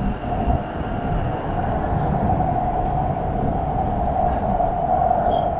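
Subway train running between stations, heard from inside the passenger car: a steady rumble of wheels on track with a sustained high whine over it.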